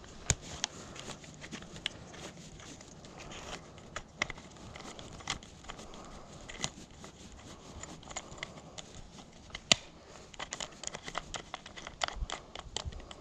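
Scattered sharp clicks and knocks of plastic and metal parts being handled as a discarded electric fan is taken apart by hand. The clicks come thicker near the end.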